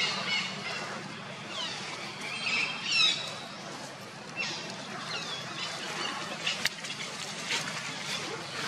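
Birds chirping and calling: a run of short high calls that sweep down in pitch, loudest about three seconds in. A single sharp click comes about two seconds before the end.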